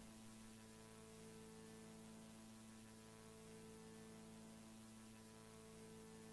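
Near silence: a faint, steady hum of several held tones over a light hiss, unchanging throughout.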